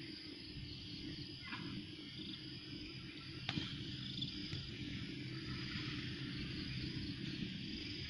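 Steady chirring of insects in the background, with a low rumble underneath and a single sharp click about three and a half seconds in.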